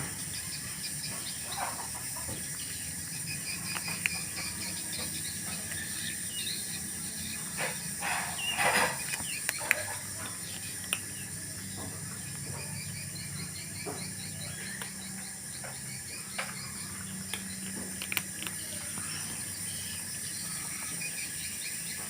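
Steady hiss under runs of quick, faint chirps, with a short louder sound about eight seconds in and a few scattered clicks.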